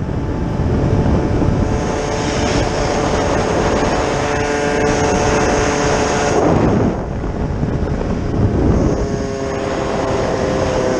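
Small two-stroke moped engine running at high revs with a steady buzzing pitch, easing off about six and a half seconds in and picking up again a couple of seconds later, over wind rushing past the microphone.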